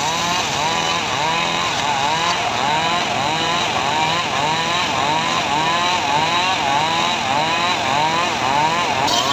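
Engine-driven saw of a homemade portable sawmill cutting sengon logs. The engine runs loud and continuously, its pitch swinging up and down in a steady cycle a little under twice a second.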